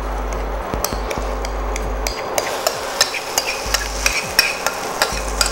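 Whisked egg and breadcrumb omelette mixture sizzling steadily in hot oil in a non-stick frying pan. A utensil clicks and scrapes against the pan throughout as the mixture is pushed around.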